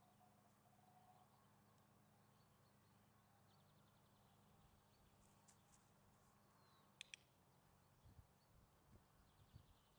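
Near-silent outdoor ambience, broken about seven seconds in by a sharp double click: a dog-training clicker pressed and released, marking the puppy's behaviour for a reward. A few soft low thumps follow near the end.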